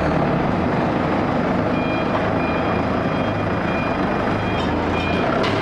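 Steady industrial machinery drone with a low hum, joined about two seconds in by a short high-pitched electronic warning beep repeating roughly twice a second.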